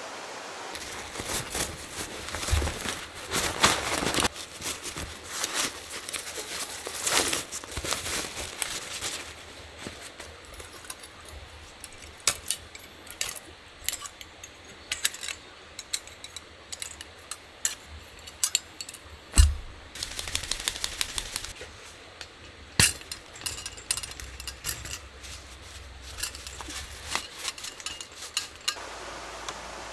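Handling noise from camping gear: a run of quick clicks, knocks and rattles of small hard objects, a few sharp ones louder than the rest, over a steady hiss. The handling starts about a second in and stops shortly before the end.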